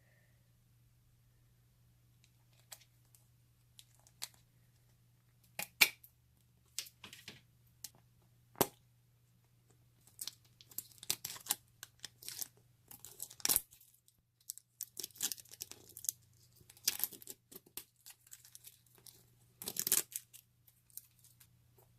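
Slime being handled by hand: scattered sharp pops and clicks, then denser crackling and tearing sounds from about halfway through.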